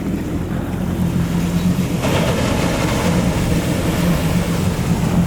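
Motorboat engine running steadily at low revs, with the wash of the sea around it, which swells a little about two seconds in.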